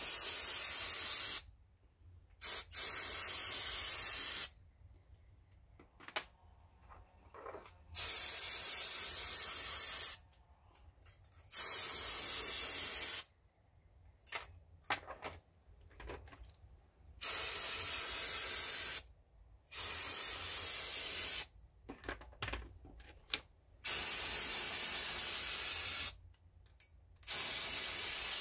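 Aerosol can of electrical contact cleaner sprayed in about eight hissing bursts of one to three seconds each, with short pauses between, flushing residue out of a fuse box.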